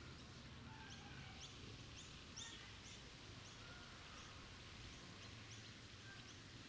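Quiet outdoor ambience: small birds chirping in quick, short high notes over a low steady rumble.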